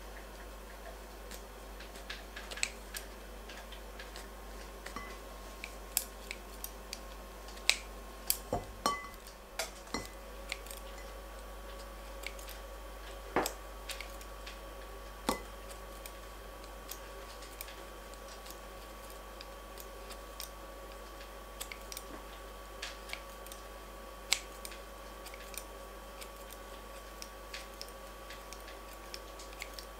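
Kitchen scissors snipping raw kadayıf (shredded kataifi pastry) strands into short pieces: scattered, irregular snips, a few of them louder than the rest.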